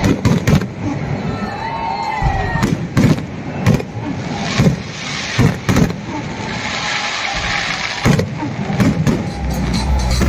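Fireworks display: aerial shells and rockets going off in a loud, irregular string of bangs, with a short rising whistle about two seconds in and a spell of crackling later on. Electronic music with a steady beat comes in near the end.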